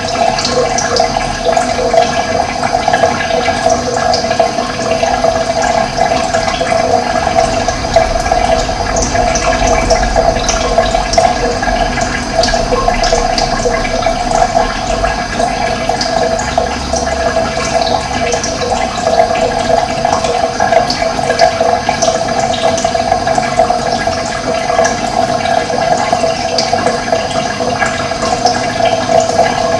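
Running water flowing steadily, a continuous dense rush of a stream or small cascade.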